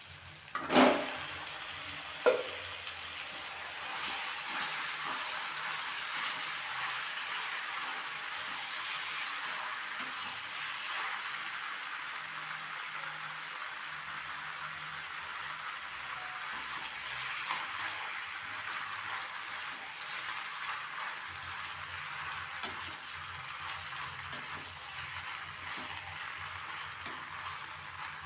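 Macaroni and vegetables sizzling as they fry in a pan, a steady hiss. Two sharp metal clanks come about a second and two seconds in.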